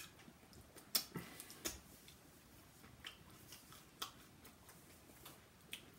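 Faint, scattered crunchy clicks of chewing a Flaming Hot Cheetos-crusted soft-shell crab sandwich. The loudest come about a second in and again shortly after.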